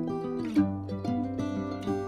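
Background music: plucked-string instruments playing a melody with notes struck in quick succession, a low bass note coming in about half a second in.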